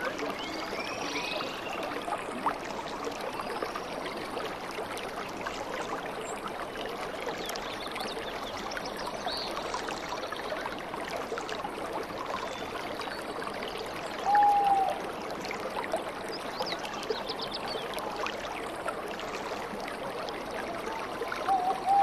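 Small waterfall running steadily over rock ledges into a pool, with faint bird chirps. A short, louder pitched call comes about fourteen seconds in, and another near the end.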